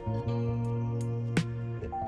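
Background music: plucked notes over held low notes.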